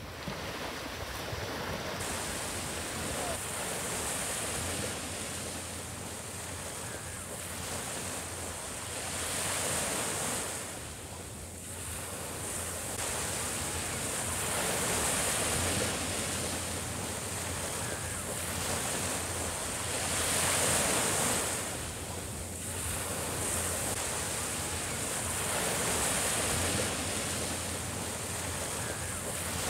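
Small sea waves breaking and washing up a sandy beach. The surf swells and falls back about every five to six seconds.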